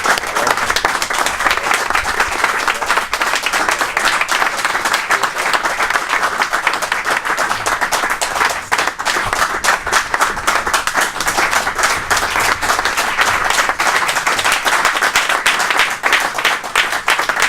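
A congregation applauding: many people clapping in dense, sustained applause, a 'clap offering' welcoming a preacher.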